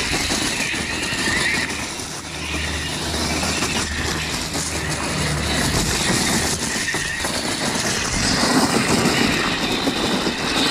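Tamiya Agrios TXT-2 RC monster truck chassis driving over loose gravel. Its two brushed electric motors whine, rising and falling in pitch with the throttle, over the steady crunch of its big tyres on the stones.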